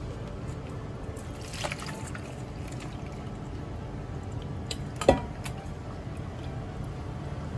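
Liquid poured off boiled shrimp from a stainless steel bowl into a plastic colander, splashing and trickling through. A single sharp knock about five seconds in is the loudest sound, over a steady low hum.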